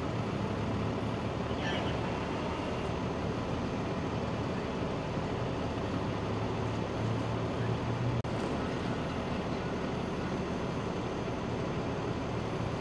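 Steady low rumble of idling vehicle engines mixed with street noise. The sound briefly cuts out about eight seconds in.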